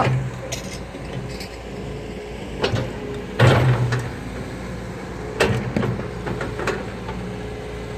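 Wheeled excavator's diesel engine running steadily while the bucket works soil, with a few short clanks and scrapes, the loudest about three and a half seconds in.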